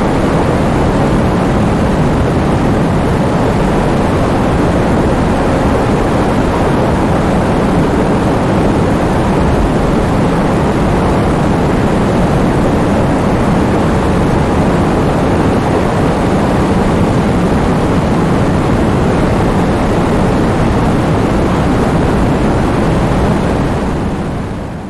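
Heavy rain falling steadily, a dense, even rushing noise without separate drops standing out, fading out near the end.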